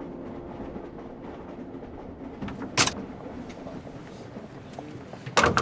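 Steady rumble of a train carriage, with one sharp knock about three seconds in and a couple of quick clacks near the end.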